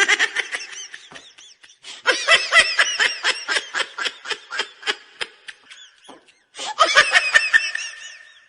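High-pitched laughter: rapid strings of giggles in three runs with short pauses between, the middle run the longest.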